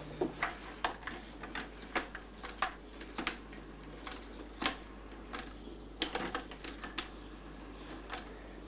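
Telephone handset being picked up and a rotary dial being dialled: a string of short, irregular clicks and knocks.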